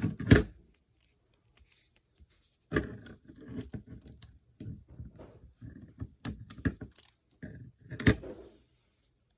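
Plastic Lego bricks being handled and pressed together: irregular sharp clicks and light rattling and rustling. The two loudest clicks come just after the start and about eight seconds in, with a quiet pause about a second in.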